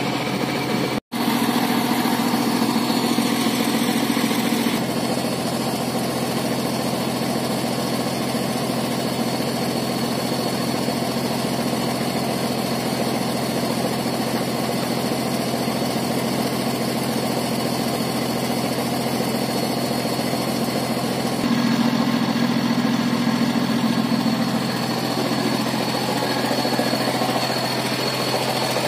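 Heavy engines of a concrete mixer truck and mobile crane running steadily, with a steady low drone. The sound drops out briefly about a second in.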